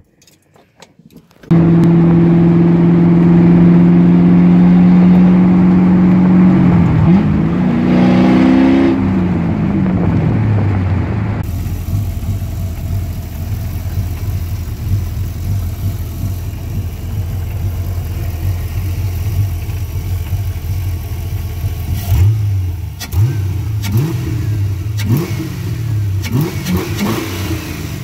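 Ford 5.0-litre Windsor V8 warming up after a cold start: after a brief near-silent gap it runs at raised revs with a steady drone, the pitch falling back to a lower idle about eight to ten seconds in. Near the end the throttle is blipped several times in quick revs.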